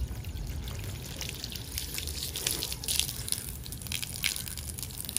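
Water from a garden hose splashing onto a cloth convertible top freshly treated with a waterproofing fabric guard: a steady spatter with scattered drips as the water beads on the fabric.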